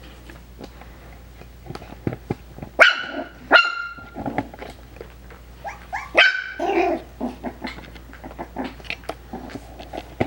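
Coton de Tulear puppy barking: three sharp, high-pitched barks, the first two close together about three seconds in and the third about six seconds in, with softer yips and small clicks between.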